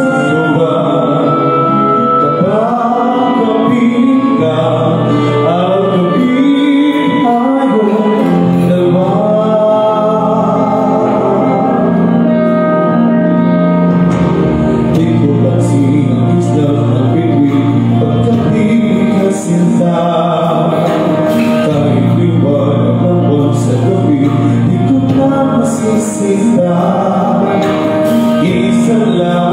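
A man singing a slow song into a microphone, his voice amplified over instrumental backing music with a steady bass line.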